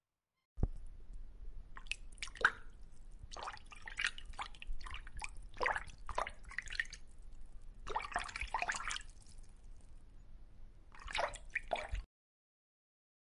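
Water sounds over an underwater kelp-forest scene: irregular drip-like pops, clicks and short bubbling gurgles, fairly quiet. They start abruptly about half a second in and cut off about a second before the end.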